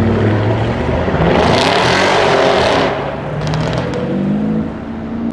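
Audi RS6 C7's twin-turbo V8 through a Milltek exhaust accelerating hard, loudest about two seconds in, followed by a few sharp exhaust crackles as it comes off the throttle.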